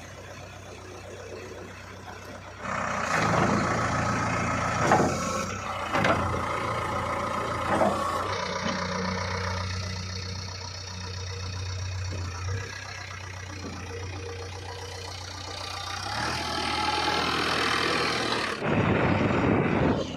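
Diesel engine of a JCB 3DX backhoe loader running steadily, revving up twice under hydraulic load while digging and loading mud. A few sharp knocks come during the first rev.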